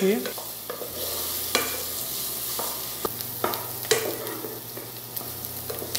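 Chopped onion and celery sautéing in oil in a metal pot, sizzling steadily while a wooden spoon stirs them, with sharp scrapes and knocks of the spoon against the pot every second or so.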